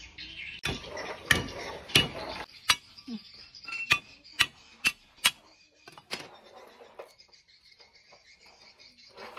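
Kitchen utensils and dishes being handled on a wooden table: about nine sharp, irregular knocks and clinks in the first six seconds, then quieter handling. Faint steady insect chirping runs underneath.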